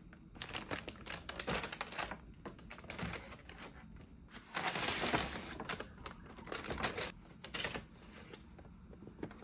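Irregular small clicks and taps, with a rustling noise lasting about a second around five seconds in.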